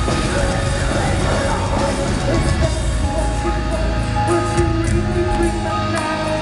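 Heavy metal band playing live through a PA: distorted guitars and drums heavy in the low end, with held melodic notes coming in about halfway through.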